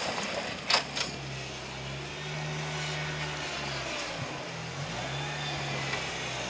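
A 4x4's engine running at low revs while crawling down a rocky slope, its note dipping briefly and picking up again. Two sharp knocks sound about a second in.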